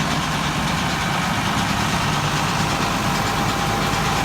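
Tractor-driven branch wood chipper running steadily, the tractor engine and spinning chipper making a continuous mechanical noise with no branches breaking through.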